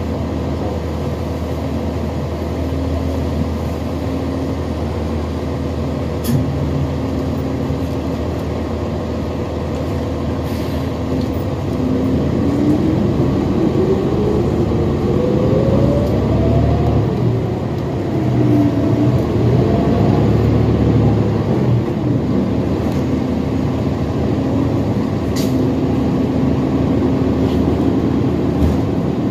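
Engine of a 2020 New Flyer XD60 Xcelsior articulated diesel bus, heard from inside: it runs with a steady hum, then gets louder about twelve seconds in as the bus pulls away. Its pitch climbs into a whine, drops back near the middle as at a gear change, and climbs again. A few light clicks are heard along the way.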